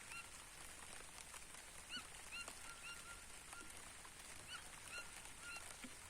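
Light rain falling on a crop field, heard as a faint even hiss with scattered drop ticks. Birds call over it with short, rising-then-falling notes, repeated irregularly, several a second at times.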